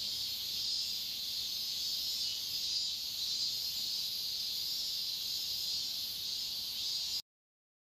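Steady, high-pitched chorus of insects such as crickets, shrill and continuous, that cuts off suddenly about seven seconds in.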